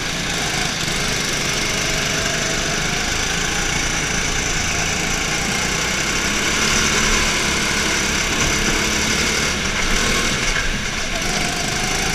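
Go-kart's small petrol engine running steadily on the throttle as the kart laps an indoor track.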